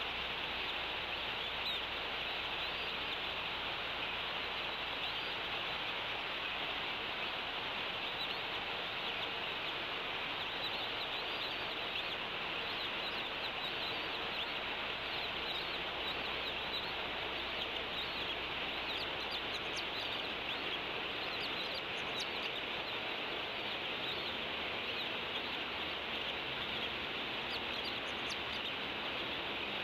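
Steady outdoor hiss picked up by the nest camera's microphone, with faint short high chirps in the second half.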